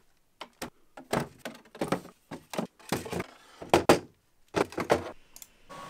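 Plastic filament spools knocking and clicking as they are lifted and seated in a Bambu Lab AMS filament unit: a string of irregular knocks. Near the end a steady machine hum with a faint high tone takes over.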